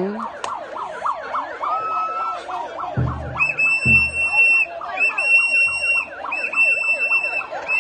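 Several women ululating, rapid warbling high trills overlapping one another, with a shrill whistle sounding in repeated blasts of about a second each from about three seconds in.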